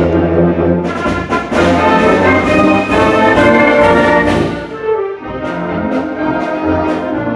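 High school concert band playing a march, brass to the fore, with sustained chords and short accents; the playing gets softer about halfway through.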